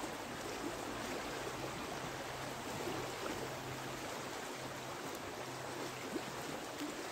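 A shallow river running over a stony bed: a steady wash of flowing water.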